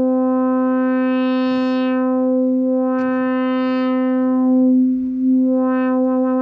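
One sustained synthesizer note from a harmonic-rich oscillator run through a filter whose cutoff is swept open and closed. The tone brightens and dulls twice as harmonics are added and removed, with a brief click about three seconds in. Near the end the brightness starts to flutter quickly.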